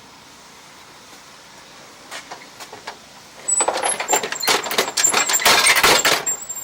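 A loose metal piece rattling and jingling inside the Toro Snow Commander's housing as the housing is shaken. There are a few light clicks about two seconds in, then hard, fast rattling from about halfway through until just before the end.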